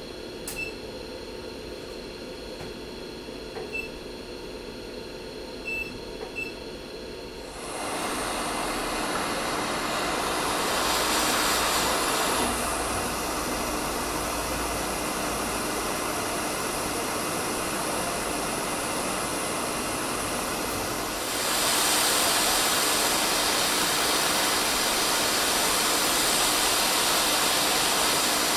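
Hot air rework station blowing onto a phone logic board: a steady rush of air that starts about eight seconds in and grows louder about 21 seconds in. A few short high beeps come before the airflow starts.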